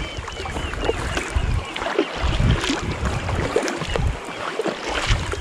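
Kayak paddles dipping and pulling through calm sea water in repeated strokes, the blades splashing alongside an inflatable tandem kayak. In the first second a quick run of high piping calls from oystercatchers rings out.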